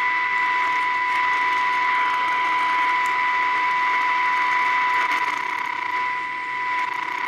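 Transistor radio's speaker giving a steady high-pitched whistle over loud hiss. It is the fault he is chasing after replacing the IF transformer capacitors, which the repairer takes for the radio being far too sensitive, with the AVC not cutting back the IF gain.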